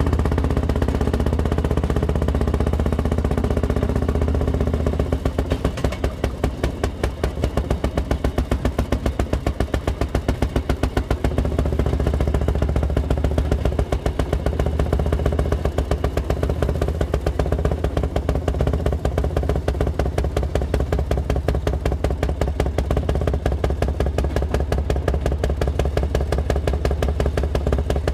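Motorized rail speeder running along the track, its small engine beating with a rapid, even pulse over a deep, steady hum.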